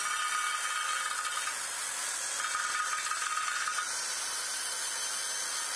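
Electric drill spinning a wire cup brush against a rusted steel motorcycle wheel rim, scouring off rust: a steady high hiss and whir of the wire bristles scraping metal. A harsher scraping tone rises twice, near the start and around the middle, as the brush bites harder into the rim.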